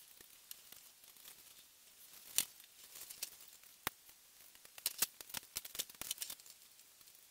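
Hard plastic model-kit parts being handled, with scattered sharp clicks: a loud one about two and a half seconds in, another near four seconds, and a quick flurry of small clicks and snaps near the end.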